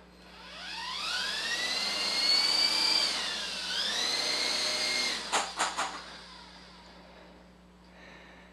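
Electric motors and rotors of a small Esky coaxial RC helicopter spinning up to a high whine as the throttle is raised to check the trim. The pitch dips once and recovers, then the throttle is cut about five seconds in and the whine dies away, with a few quick clicks as it stops.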